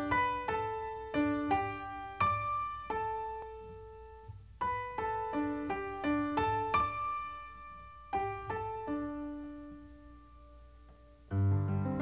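Slow solo piano background music: single struck notes and short phrases that ring and fade away. Fuller chords with a bass line come in near the end.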